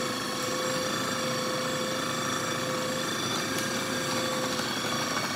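KitchenAid food processor's motor running steadily on its puree setting, a continuous even whir from the spinning blade in the bowl of fruit and vegetables.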